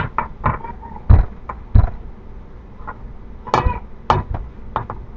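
Irregular knocks and thumps of hands pressing pizza dough out in a pizza pan on a kitchen counter. The two heaviest thumps fall a little over a second in and just before two seconds.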